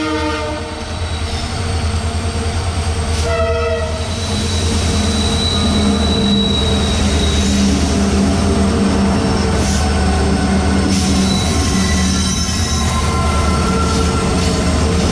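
Train running along the track close by, with a steady deep rumble. A horn sounds briefly about three seconds in, and there is a thin, high squeal of the wheels on the rails.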